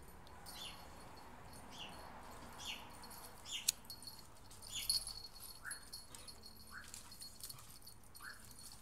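Dogs at rough play, giving a run of short, high-pitched yips about once a second, lower-pitched in the second half, with one sharp click about midway.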